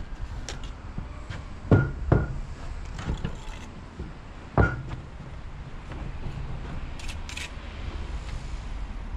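Three sharp metal knocks with a short ring, two close together about two seconds in and one more about halfway through, over a low steady rumble. These are masons' tools striking while stone blocks are laid on a scaffolded wall.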